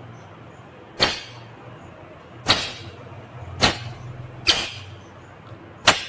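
Five sharp, loud snaps about a second apart as a rose-ringed parakeet bites into a carrot with its beak, over a low steady hum.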